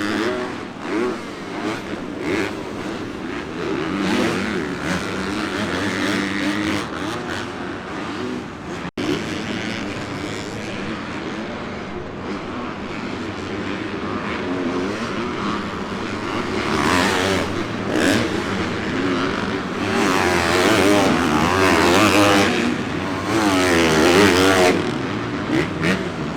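Several motocross bikes racing round a supercross track, their engines revving up and down over and over, louder and busier in the second half.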